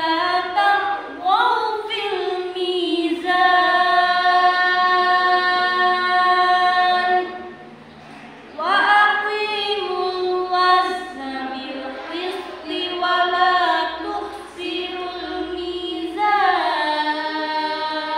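Young voices reciting the Qur'an together in a chanted, melodic style, holding long notes with sliding ornaments. There is a short breath pause about eight seconds in before the next verse begins.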